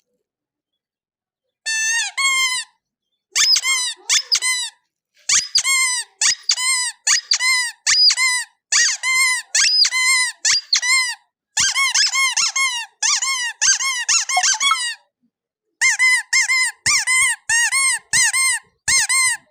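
A squeaky toy squeezed over and over, fast squeaks each rising then falling in pitch, about three or four a second in runs with short pauses; they start a couple of seconds in.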